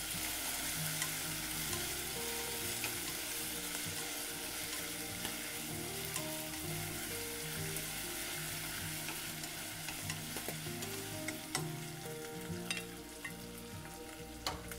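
Fried beef strips with dried red chilies and Sichuan peppercorns sizzling in hot oil as they are stir-fried with chopsticks, the chopsticks clicking against the pot now and then. The sizzle softens a little near the end as the stirring stops.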